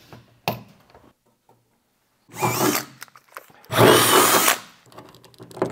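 Cordless drill with a 3/8-inch bit boring through the sheet-metal skin of a Sprinter van's rear door in two short bursts, the second longer and louder, the motor whine bending in pitch as the bit bites. A few light clicks and knocks fall between the bursts.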